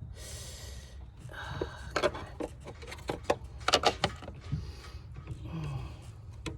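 Screwdriver scraping, clicking and knocking against a rubber upper radiator hose, its fitting and the shroud as the hose is pried onto the fitting: a brief rubbing at first, then a run of irregular sharp clicks and knocks.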